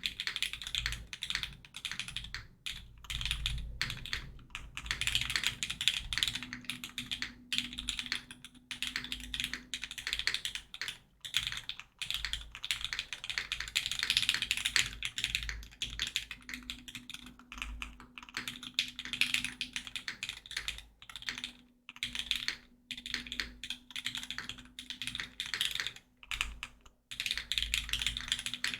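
Fast, continuous typing on a Geonworks F2-84 mechanical keyboard with lubed Cherry Hyperglide MX Black linear switches, an aluminium plate and GMK Botanical keycaps, with a few brief pauses between bursts of keystrokes.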